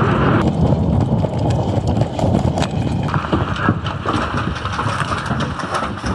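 Footsteps of a person running, with the rustle and knock of carried gear, turning into sharper footfalls on a hard floor about halfway through.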